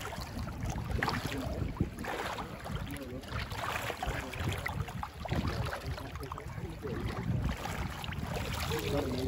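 Shallow water sloshing and lapping around a large barramundi as it is held upright by hand and swum off for release, with small irregular splashes.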